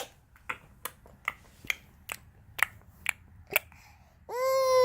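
A baby making a string of sharp mouth clicks with her tongue, about two to three a second, then a long steady-pitched baby vocal sound about four seconds in.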